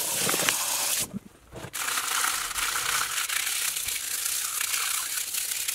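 Tap water running into a plastic tub of soapy water for about a second, then, after a short break, a plastic scrub brush rubbing small parts in the suds with a dense, scratchy rasp.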